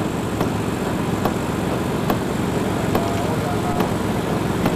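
Strong, steady wind rushing over the microphone, with a low vehicle rumble underneath and a light tick repeating a little more than once a second.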